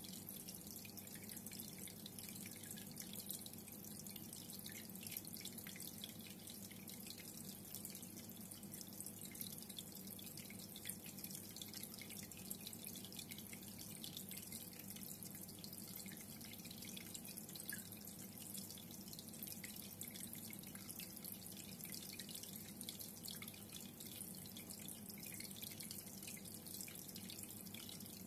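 Reef aquarium water trickling and splashing steadily, with a low steady hum underneath.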